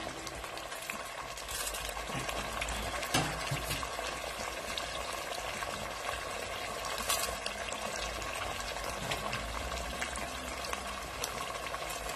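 Chicken tikka sizzling and crackling in a hot pot, a steady hiss with sharp pops, the strongest about three and seven seconds in.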